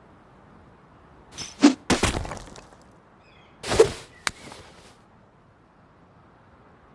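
Spear sound effect: two quick swishes, each ending in a sharp hit. The first comes about a second and a half in and has a short rattling tail; the second comes near four seconds and is followed by a single sharp click.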